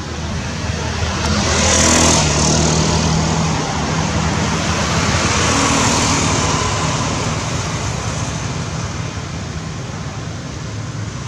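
Road traffic passing by: a motor vehicle goes past about two seconds in, its engine pitch falling as it passes, and another passes around six seconds in, over a steady traffic hum.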